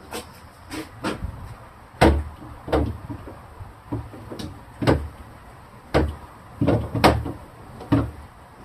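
Refrigerator drawers and shelves knocking and clattering as they are fitted back into the fridge: a string of about a dozen sharp, uneven knocks.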